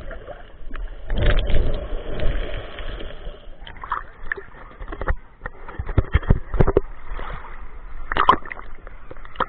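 Sea water sloshing and splashing around a camera held at and under the surface, with scattered short knocks and clicks.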